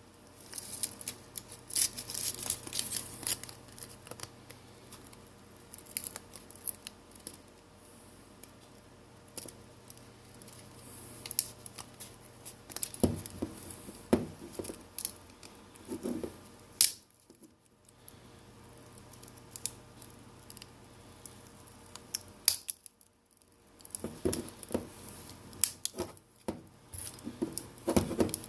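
Irregular scraping, clicking and crackling as a playing card is worked under the Samsung Galaxy J5's broken LCD, prying the glued screen off the phone's frame.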